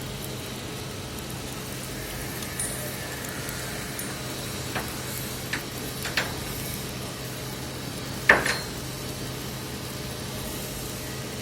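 Arc welding on steel tank bottom plates: a steady sizzling crackle over a constant low hum, with a few sharp metallic clinks, the loudest about eight seconds in.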